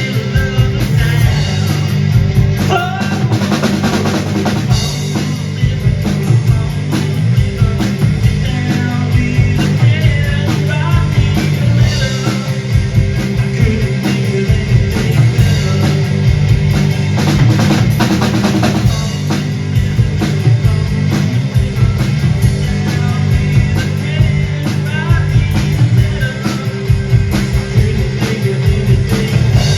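Live rock music from a guitar-and-drums duo: a drum kit played hard and steadily, with kick, snare and rimshot hits, under a sustained guitar.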